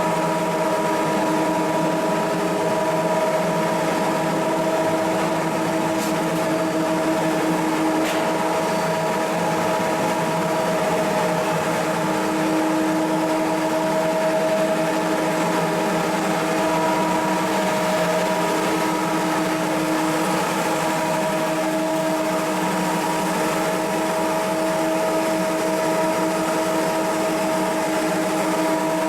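Steady drone of shipboard machinery running, a constant hum of a few fixed tones over a rushing noise, with no change in speed or level.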